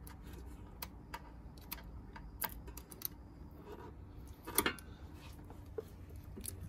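Irregular light clicks and taps of a screwdriver tip on a steel battery tray bracket as it pierces the sticker over the mounting holes. The sharpest click comes about four and a half seconds in.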